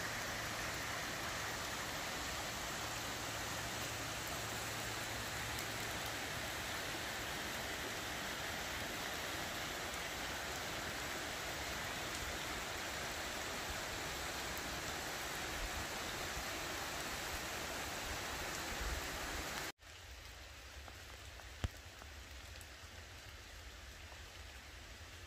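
Heavy rain falling steadily on woodland leaves, an even hiss with no break in it. About twenty seconds in it drops suddenly to a quieter level of the same rain.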